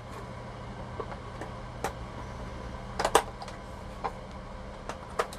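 Small plastic clicks and taps from the doors of a toy car being pried open by hand. There are a handful of sharp clicks, with the loudest pair about three seconds in, over a steady low hum.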